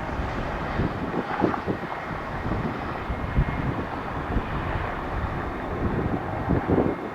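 Distant jet airliner engine noise mixed with wind buffeting the microphone.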